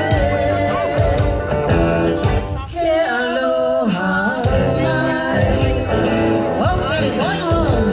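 Music: a song with singing over guitar and a steady bass beat.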